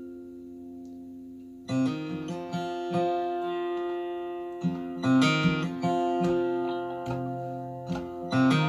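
Acoustic guitar music played back over a hi-fi system's loudspeakers: plucked notes ring on, with new notes struck about two seconds in, again around five seconds, and near the end.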